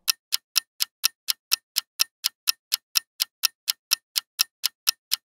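Countdown-timer clock-ticking sound effect: sharp, even, high-pitched ticks about four times a second.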